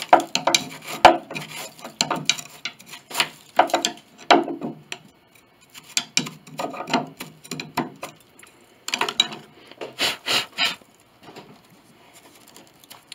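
A hand tool scraping and rubbing through oak chips and splinters, clearing them out of a narrow slot in a piano case. It goes in a run of short, irregular strokes with a couple of brief pauses, and stops about eleven seconds in.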